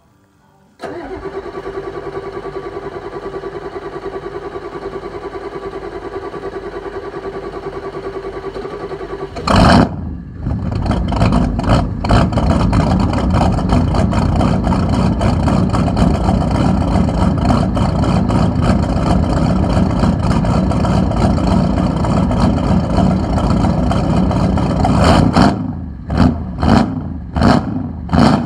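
Ford 7.3 IDI V8 diesel cold start: the starter cranks steadily for about nine seconds before the engine catches with a loud burst, then runs rough and loud, blipped several times near the end.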